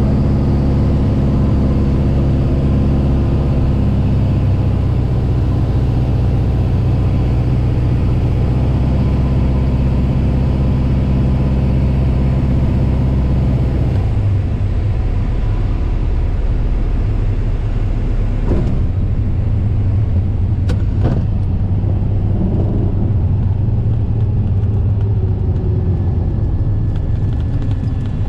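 Piper Arrow's four-cylinder Lycoming engine and propeller heard from inside the cabin, running steadily on short final. About halfway through, the engine note drops abruptly to a lower idle drone as power comes off for the landing. Two sharp clicks follow as the aircraft rolls and slows on the runway.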